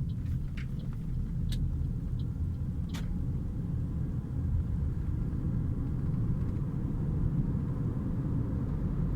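Toyota RAV4's engine and exhaust running with a steady low rumble, the exhaust noise the owner takes to be abnormal. A few sharp clicks come in the first three seconds, the loudest about three seconds in.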